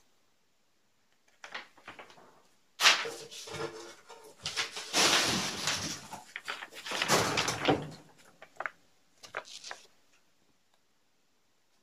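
Sheets of paper rustling and being handled close to the microphone as one handwritten sign is swapped for another, with knocks against the camera. A sharp bump about three seconds in starts the loudest stretch, and a few light clicks follow near the end.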